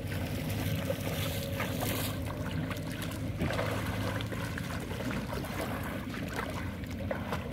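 River water splashing and sloshing around a person's legs as they wade through the shallows carrying a cast net, with a few sharper splashes and a steady low hum underneath.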